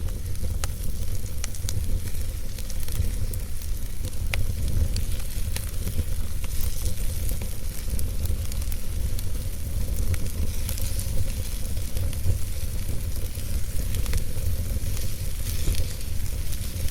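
Campfire burning with a steady hiss and frequent sharp crackles and pops from the burning wood, over a constant low rumble.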